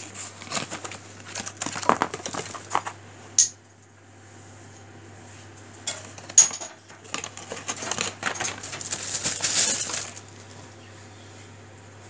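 Hands handling spare parts and their packaging: a series of light clicks and clinks of small metal parts and cardboard boxes in the first few seconds, then a stretch of plastic bag and packaging rustling about halfway through.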